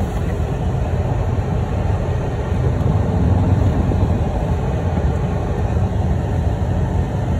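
Steady low rumble of a moving vehicle's engine and road noise, heard inside the cab.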